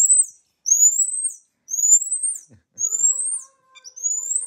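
Marmoset giving a series of high-pitched phee calls: about five whistled calls, each rising in pitch and ending in a quick downward drop.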